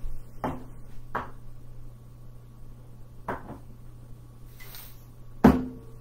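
Four sharp knocks or taps at uneven intervals, the last, near the end, the loudest with a short ring after it, over a steady low hum.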